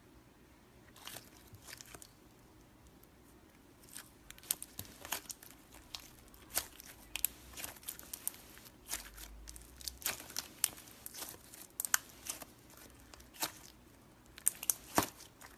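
Slime being squeezed and stretched by hand, giving off irregular sharp crackling pops and clicks. The pops are sparse at first and come thick and fast from about four seconds in.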